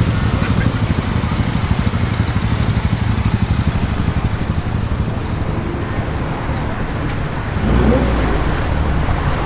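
Car engines running amid road traffic. A louder engine comes in about eight seconds in, its pitch rising as it revs.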